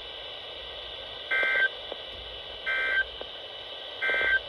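Three short bursts of SAME digital data tones from a NOAA Weather Radio broadcast, about one and a half seconds apart, over steady radio hiss. This is the End of Message code that closes the weekly test of the warning system.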